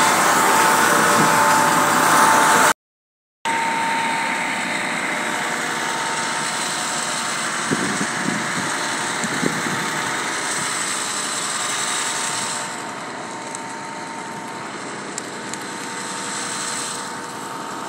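A steady rushing noise from a large open fire of burning rubbish, quieter for the second half, with a few sharp crackles near the end. The first seconds, before a brief silent cut, carry a louder steady engine-like drone from a car fire being put out.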